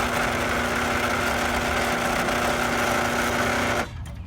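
Electric motor with magnetic limit switches running unloaded with a steady hum and tone, then cutting off suddenly near the end as the limit switch stops it.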